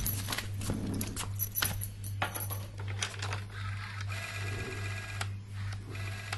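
Clicks and clatter of an old black rotary telephone being picked up and dialed, with a steady buzzing tone about four seconds in and again near the end.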